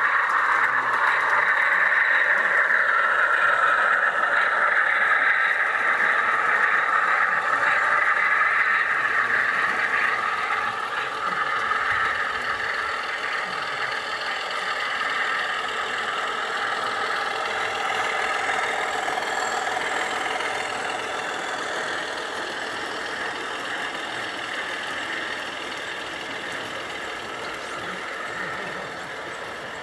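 0 gauge model diesel train running along garden railway track: a steady mechanical running sound that slowly fades as the train moves away.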